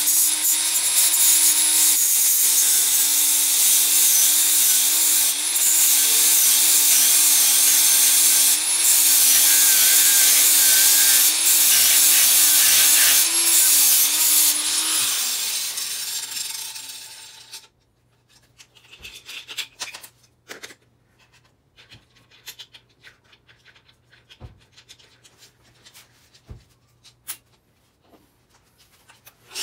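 Electric angle grinder with a grinding disc grinding down stainless-steel solder filling holes in a Supertrap motorcycle muffler, its motor pitch dipping again and again as the disc bites. After about fifteen seconds it is switched off and winds down, followed by a quiet stretch with a few light clicks and knocks.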